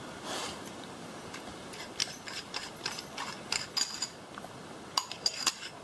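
A brief rush of noise, then irregular runs of small, sharp mechanical clicks and clatters, in two bursts with a short lull between.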